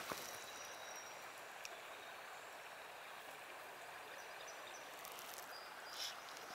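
Faint, steady rush of river water flowing, with a couple of faint high whistles.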